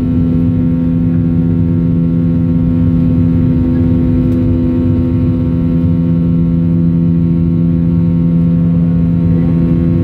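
Boeing 737-800's CFM56-7B jet engines heard from inside the passenger cabin while the airliner climbs after takeoff: a loud, steady drone with several held hum tones over a deep rumble.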